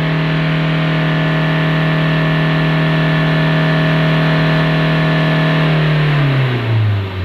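Mahindra Scorpio S4's turbodiesel engine free-revved with the vehicle standing, held steady near 5,000 rpm during a test for the boost-pressure fault code P0234. Near the end the throttle is released and the revs fall away toward idle.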